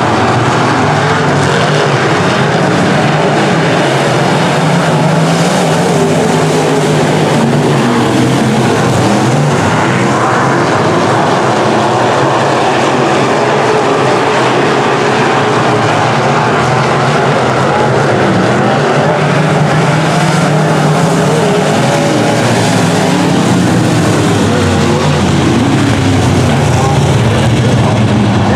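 Dirt-track semi-late model race cars' V8 engines running hard under race power, a loud continuous roar whose pitch wavers up and down as the cars circle the track.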